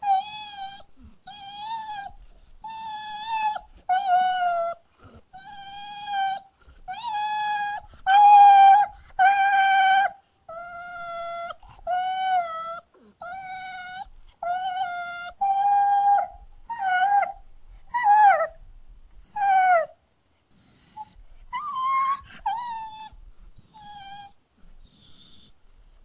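A dog whining and whimpering in a string of short, high-pitched cries, about one a second, several of them sliding down in pitch.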